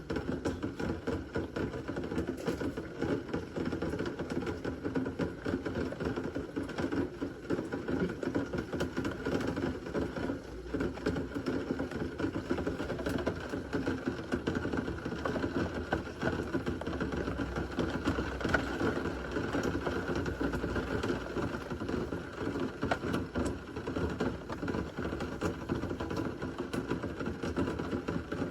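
Steady heavy rain from a severe thunderstorm, a dense, unbroken hiss of countless small drop impacts.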